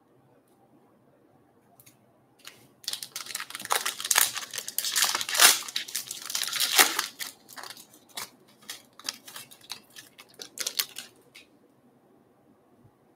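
Foil trading-card pack wrapper being torn open and crinkled by hand, a busy crackling and tearing that is loudest in the first few seconds and then thins to scattered crinkles.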